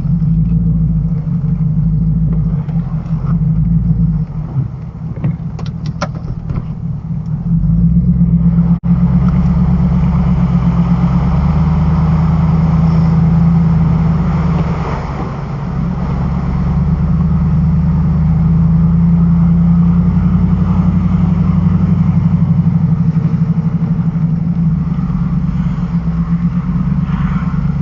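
A vehicle engine runs with a steady low drone as the car drives. About nine seconds in it briefly cuts out, then comes back a little louder.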